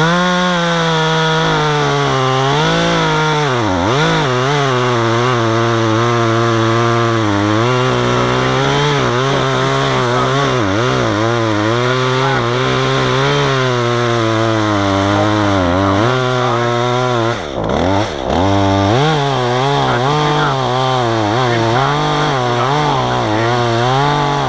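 Chainsaw cutting into a log, the engine pitch wavering up and down under load. It drops off briefly twice about three-quarters of the way through.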